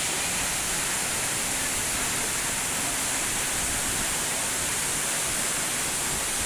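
Waterfall's steady rush of falling water, heard as an even, unbroken hiss.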